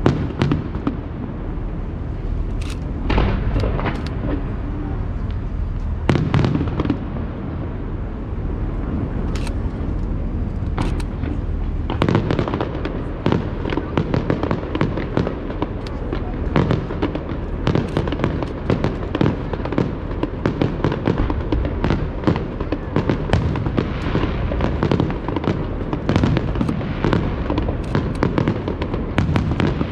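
Aerial fireworks shells bursting: a few separate booms in the first twelve seconds, then from about twelve seconds on a dense run of rapid bangs and crackling.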